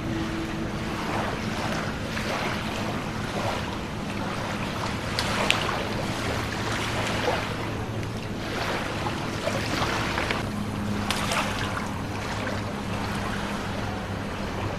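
Wind on the microphone and water noise with a low steady hum, broken by a few sharp knocks, the clearest about five and eleven seconds in.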